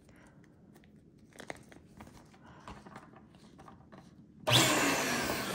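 Faint crinkling of a clear plastic Bobo balloon as it is handled and fitted onto a nozzle. About four and a half seconds in, an electric balloon inflator switches on with a sudden, loud, steady rush of air, starting to blow the balloon up.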